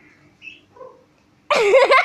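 A kitten meowing loudly with a wavering pitch, starting suddenly about one and a half seconds in after a quiet stretch.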